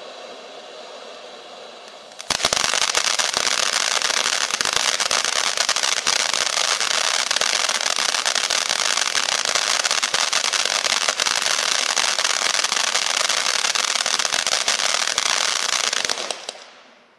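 Winda 'Alien Abduction' ground fountain firework burning: first a steady hiss of spraying sparks, then about two seconds in it breaks suddenly into loud, dense crackling. The crackling holds steady for about fourteen seconds and dies away near the end as the fountain burns out.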